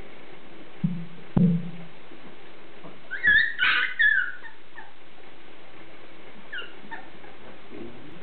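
Beagle puppies play-fighting: a couple of short low noises about a second in, then a burst of high-pitched yelps and whimpers around the middle, and a fainter whine or two later, over a steady background hiss.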